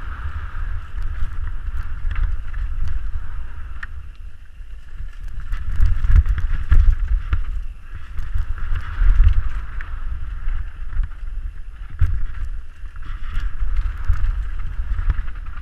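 Wind buffeting the helmet camera's microphone on a fast mountain-bike descent, a low rumble that swells and drops with speed. Over it, the Canyon Strive enduro bike rattles and clicks as it runs over dry, stony dirt singletrack.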